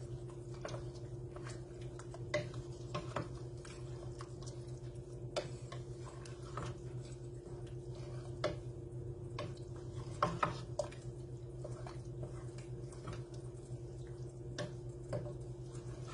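A wooden spoon stirring thick bean chilli in a stainless steel pot: wet squelching with irregular taps and scrapes of the spoon against the pot, a quick cluster of knocks about ten seconds in, all over a steady low hum.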